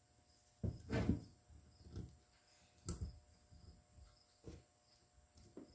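Small brake slave cylinder parts being handled during a rebuild: a few scattered soft knocks and clunks, with one sharp click about three seconds in.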